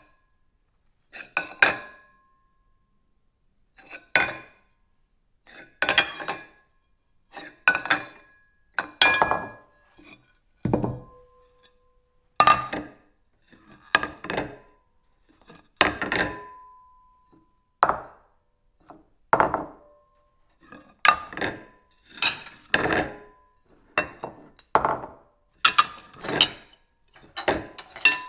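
Ceramic plates being knocked and set down, a long series of separate clinks and clunks, each with a short ring that dies away; some leave a brief clear tone.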